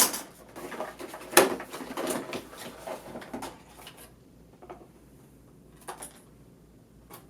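Hands working open a cardboard product box and its packaging: a couple of sharp knocks and rustling handling noise for the first three and a half seconds, then a few faint clicks.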